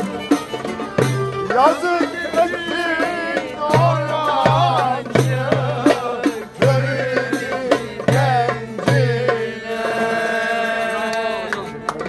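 Turkish fasıl music: a wavering, ornamented lead melody over regular low drum strokes. It settles on one long held note near the end and then stops.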